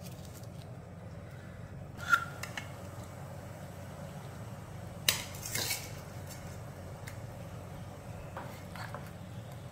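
Kitchen utensils clinking against a stainless steel cooking pot: a sharp ringing clink about two seconds in, and a louder clink about five seconds in followed by a brief rattle as the metal ladle is set into the pot.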